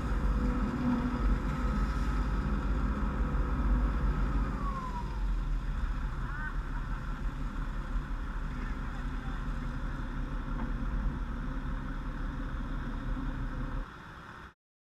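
Fire engine's 1500 GPM single-stage pump and engine running steadily under a deep rumble while the deck gun's water stream is shut down. A faint whine falls in pitch about five seconds in; the sound drops near the end and then cuts off suddenly.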